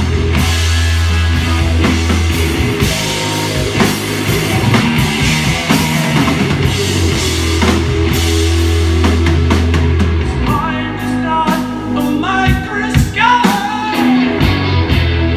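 Live rock band playing, amplified: drum kit, electric guitars and a held low bass note, with high notes bending up and down from about two-thirds of the way through.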